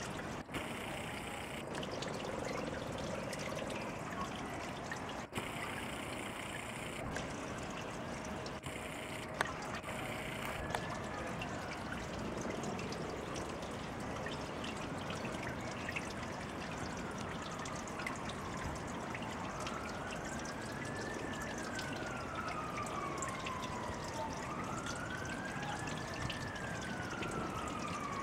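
Small pond fountain spraying and splashing back onto the water surface: a steady trickle. From about ten seconds in, a siren wails, slowly rising and falling again and again.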